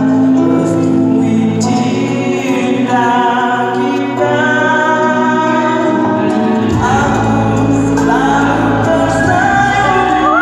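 A man singing into a microphone over backing music played through PA speakers. A deep bass line comes in about two-thirds of the way through.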